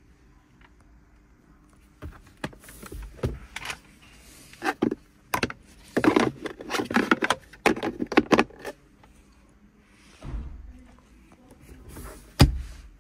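A hand handling the plastic interior trim of a 2024 Honda Civic, an opened storage compartment: a run of clicks, knocks and rattles, then one sharp knock near the end, the loudest sound.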